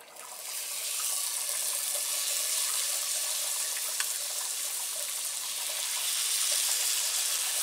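Mashed sweet potato sizzling as it is spooned into hot butter-and-honey sauce in a cast iron skillet. The hiss swells over the first second and then holds steady, with a single light tap about four seconds in.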